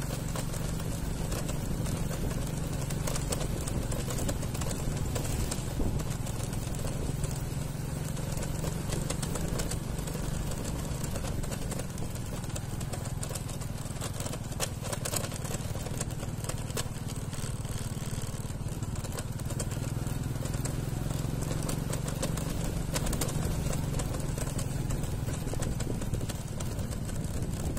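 A motor vehicle engine running steadily: a constant low drone with road noise over it.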